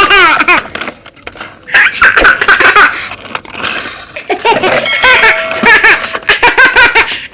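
High-pitched laughter in several loud bursts with short gaps between them.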